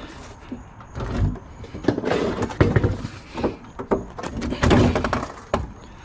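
Irregular knocks, thuds and rattles of scrap items being handled and shifted, with the heaviest impacts a little before five seconds in.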